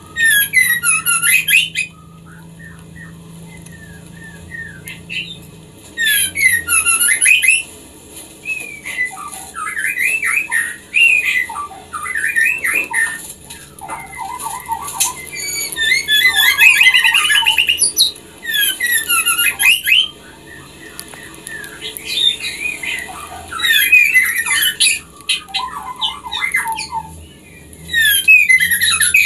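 Female white-rumped shama calling in breeding condition, the call of a hen in heat summoning a male: bursts of rapid, chattering, sweeping notes lasting a second or more each, with short pauses between.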